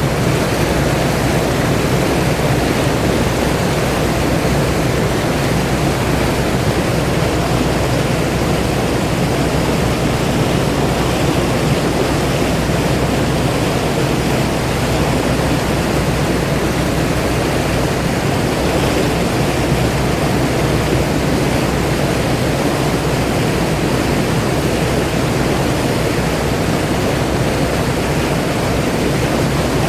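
Motorboat running at speed: a steady rush of water and spray along the hull over the low drone of its engine.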